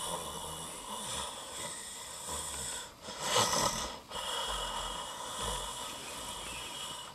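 A man snoring while asleep, with one louder snore about three seconds in.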